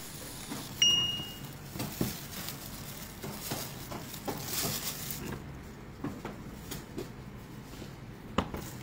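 Light clicks and taps from a clear plastic food container as soft durian flesh pods are handled and laid in it, with one short high ding about a second in.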